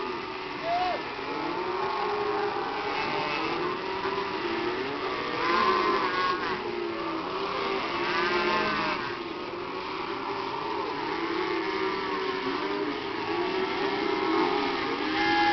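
A herd of cattle lowing, many overlapping calls rising and falling in pitch.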